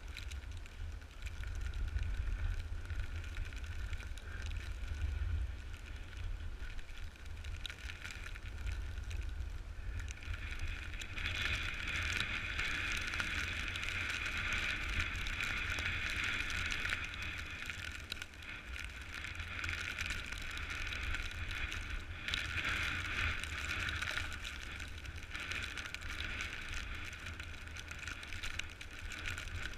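Wind buffeting the microphone with a low rumble, over the steady hiss and scrape of a snowboard sliding over snow. The scraping grows louder about eleven seconds in and stays loud.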